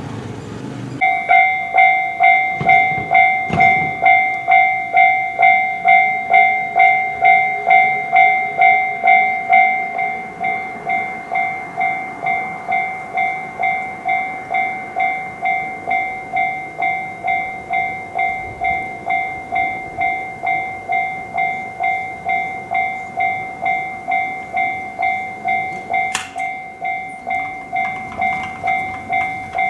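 Japanese railway level crossing warning alarm ringing its repeated two-tone "kan-kan", a little under two strikes a second. It starts about a second in and drops slightly in loudness after about ten seconds.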